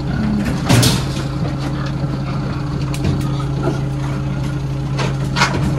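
A steady, low, even-pitched engine hum, with one short sharp noise about a second in.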